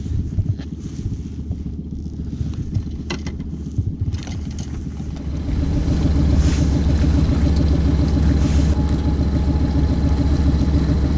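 A low rumble with a few sharp clicks. About five seconds in it gives way to a louder, steady truck engine idling.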